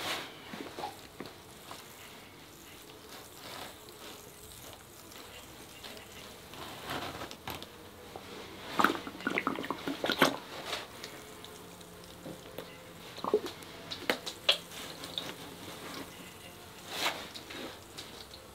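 Plastic squeeze bottle of white liquid acrylic pouring paint being squeezed out onto canvas: faint, scattered short wet squirts and handling noises, the clearest about nine and ten seconds in and again near seventeen seconds.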